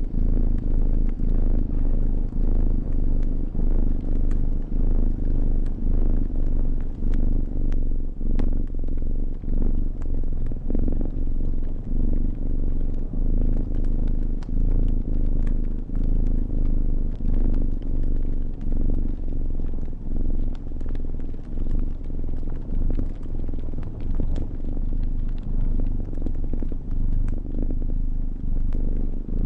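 A cat purring steadily, swelling and dipping with each breath about once a second. The small snaps and pops of a crackling fire are scattered over it.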